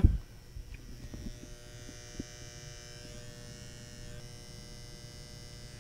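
Fluorescent ceiling lights buzzing, a steady electrical hum with a thin high whine over it, and a few small knocks near the start.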